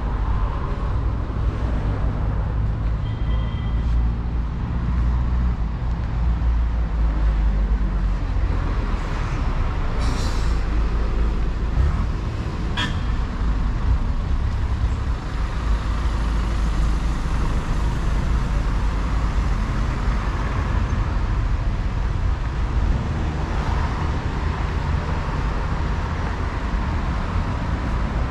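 City street traffic: motor vehicles passing with a steady, heavy low rumble. A short hiss comes about ten seconds in and a single sharp click a few seconds later.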